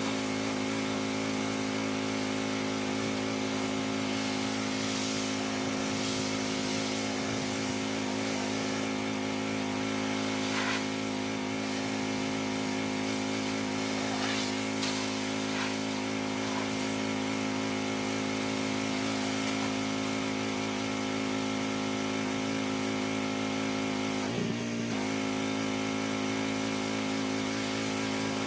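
Gas-engine pressure washer running steadily under load, with the hiss of the spray over the engine's hum; the sound dips briefly about 24 seconds in.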